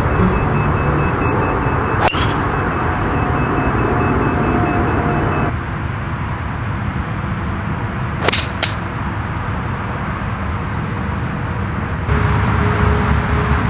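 Two golf shots. First, a driver strikes the ball off the tee with one sharp crack and a short ring, about two seconds in. Then another club strikes the ball from the grass with a quick double click, about eight seconds in. Steady outdoor background hiss runs under both.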